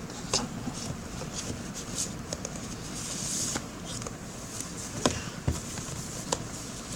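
Phone and its cardboard box being handled close to the microphone: scattered taps and clicks, with a short rustle about three seconds in.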